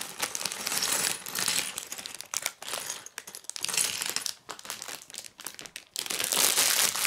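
Thin clear plastic LEGO parts bag crinkling as it is handled and emptied, with small hard plastic LEGO pieces clicking and clattering onto a wooden tabletop.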